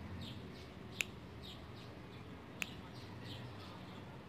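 Steel nail nippers snipping through a toenail: two sharp clicks about a second and a half apart. Under them, a bird chirps faintly, short high notes repeated a couple of times a second.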